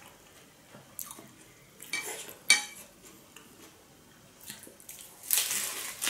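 Crockery handling: soft clicks of a small porcelain plate and bowl, with one sharp ringing clink about two and a half seconds in. Near the end comes a brief crisp crunch as a lettuce-wrapped fried spring roll is bitten.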